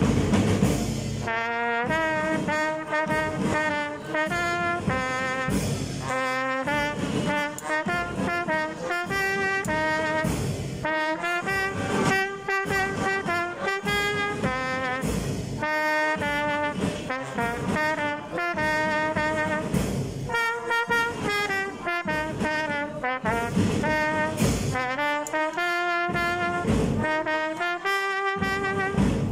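A school brass band playing an anthem: a melody on trumpets and other brass over bass drum beats, starting about a second in after a count-in.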